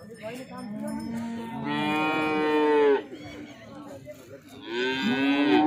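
A cow mooing twice, two long drawn-out calls. The first swells up and cuts off about three seconds in; the second begins near the end and carries on.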